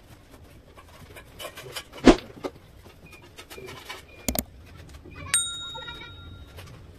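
A sharp knock about two seconds in, a quick double click a couple of seconds later, then one bright bell ding that rings out for about a second: the click and notification-bell sound effect of a subscribe-button animation.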